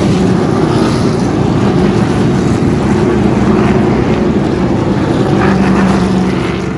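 A pack of NASCAR stock cars' V8 engines running at speed on the track: a loud, steady engine drone that eases off slightly near the end.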